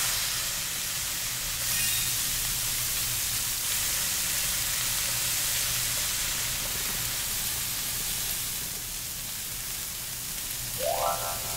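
Sliced duck meat sizzling steadily on a large, very hot iron griddle as it is stir-fried, an even frying hiss. Near the end, a short rising tone sweeps up briefly.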